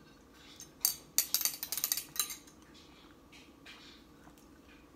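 A metal spoon clinking and scraping against the inside of a small glass bottle: a quick run of sharp clinks between about one and two and a half seconds in.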